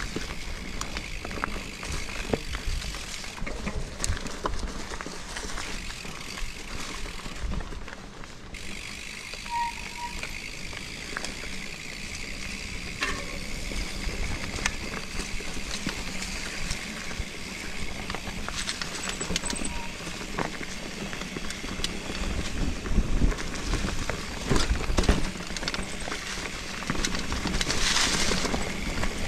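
Mountain bike being ridden along a dirt forest trail: tyres rolling over dirt and roots, with many small rattles and knocks from the bike and heavier low rumbles as it goes over bumps about two-thirds of the way through.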